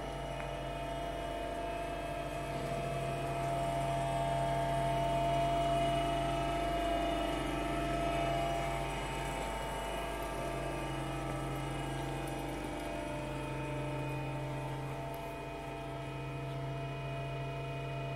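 Steady hum of a hydraulic CNC press brake's electric pump motor running at idle, several steady tones held at an even level.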